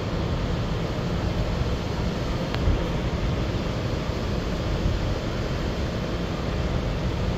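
Steady rumble and rush of an R211A subway car running, heard from inside the car, with one faint click about two and a half seconds in.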